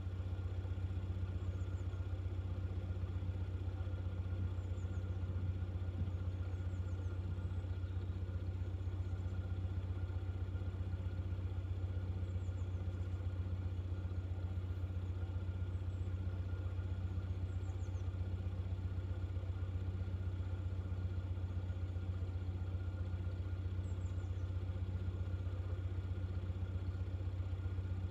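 Narrowboat diesel engine running at a steady low speed, a constant deep hum.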